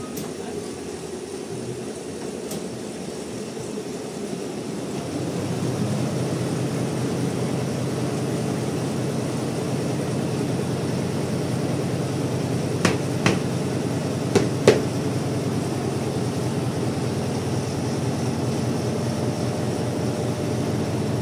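Multi-head Richpeace computerized embroidery machine running, its needle heads stitching with a steady, rapid mechanical clatter that grows louder about five seconds in. Four sharp clicks sound a little past the middle.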